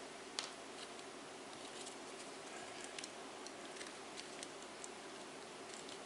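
A few faint, scattered clicks and taps of hands handling a mini fan's plastic rear cover and rotary switch, over a steady low hiss.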